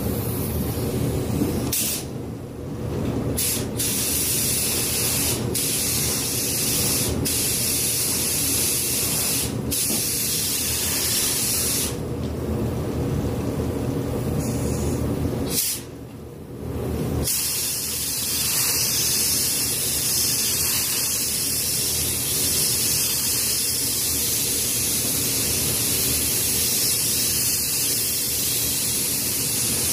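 Compressed-air paint spray gun hissing steadily as paint is sprayed, the air cutting out briefly about two seconds in and again for about a second and a half around the middle, with a steady low hum underneath.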